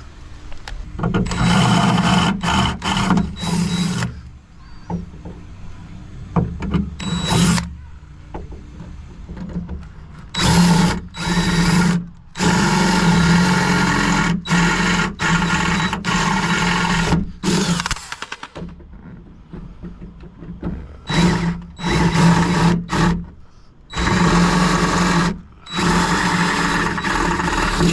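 Electric drill running in repeated bursts of about half a second to five seconds, drilling holes, with short pauses between bursts.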